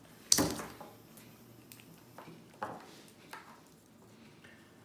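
A sharp knock of a hard object set down on a wooden desk about a third of a second in, followed by a few lighter clicks and taps of small parts being handled.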